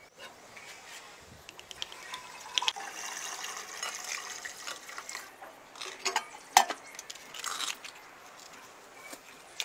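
Water poured from a clay jug into a metal samovar, a steady splashing stream for a few seconds. Then a few sharp clicks and knocks, the loudest about six and a half seconds in.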